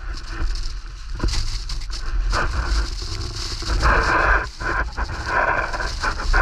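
Skis or a snowboard sliding and turning through snow, the hiss swelling with each turn, with wind buffeting the microphone.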